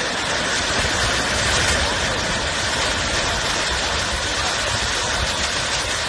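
Steady roar of a rockslide, rock and debris pouring down a steep slope, with a deep rumble underneath.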